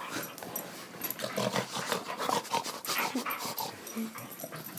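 Airedale terrier making short, irregular vocal sounds while roughhousing with a person's hands, among steady scuffling and rustling of fur.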